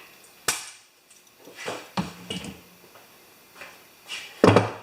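Metal parts of a mower deck spindle knocking and clattering as they are handled and set down: a few separate sharp knocks, the loudest near the end.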